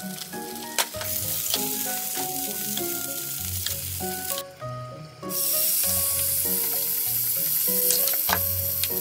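Meat sizzling in a frying pan, with a few sharp clicks; a light background melody plays throughout. The sizzle drops out for a moment around the middle and comes back louder: the hot pan with the meat's leftover juices sizzling.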